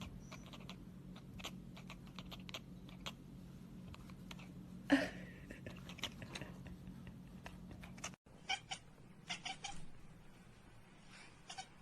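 Cat chattering at birds: rapid sharp clicks with short chirps, and one louder call about five seconds in. A steady low hum lies under the first part.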